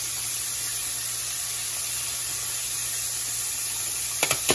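Battered chicken pieces deep-frying in hot vegetable oil in a skillet: a steady sizzling hiss, with a few sharp clicks near the end.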